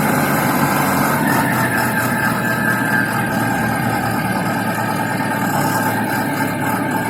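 Self-loading concrete mixer truck's engine running steadily, with a thin higher whine joining about a second in.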